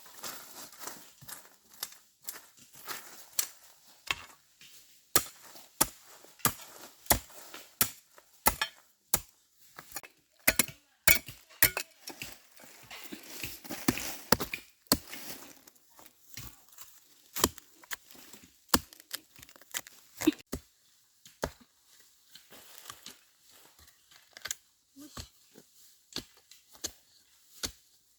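A blade chopping repeatedly, with tearing and crinkling sounds between the strokes. The strikes come about one or two a second, thickest in the middle and thinning out toward the end.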